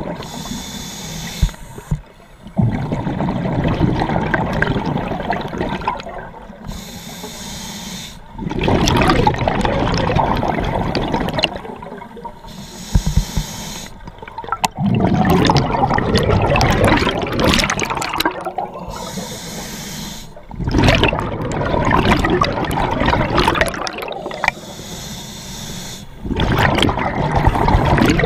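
A scuba diver breathing through an open-circuit regulator underwater: short hissing inhalations alternate with long, loud bubbling exhalations, about five breaths.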